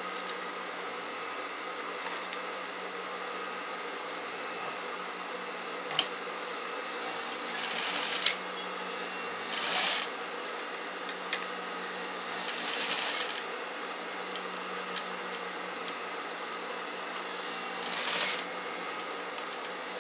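Industrial sewing machine stitching in four short runs of about a second each, with a few sharp clicks between runs. A steady hum runs underneath.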